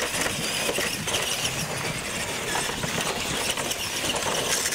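Two radio-controlled monster trucks racing side by side across concrete: the steady whir of their motors and drivetrains mixed with tyre noise on the pavement, as they launch off small ramps near the end.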